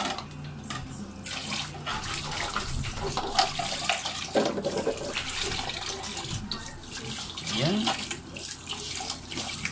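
Water running from a tap and splashing onto the wire guard of an electric fan as it is rinsed and turned under the stream; the flow starts about a second in.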